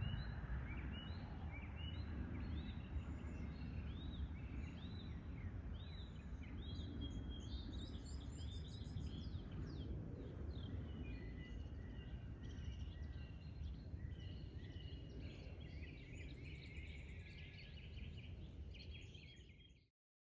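Outdoor backyard ambience with songbirds calling: a run of short arching chirps repeated evenly, about three every two seconds, then a looser mix of smaller calls from about nine seconds in, over a steady low rumble. The sound fades out just before the end.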